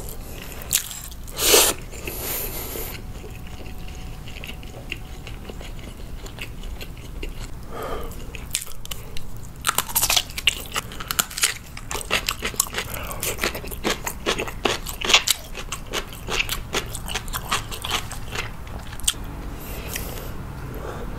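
Close-miked eating sounds: chewing instant noodles, then, about ten seconds in, a bite into an oiji, a Korean salted cucumber pickle, followed by several seconds of crisp crunching.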